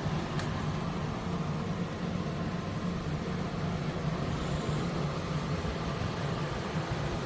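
Humhold 14000 BTU portable air conditioner running: a steady hum under even fan noise, with one light click shortly after the start.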